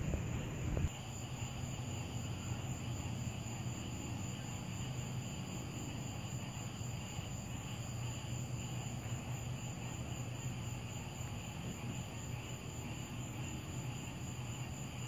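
Steady outdoor night ambience: a low hum with a faint, steady high-pitched drone above it. A louder low rumble cuts off abruptly about a second in.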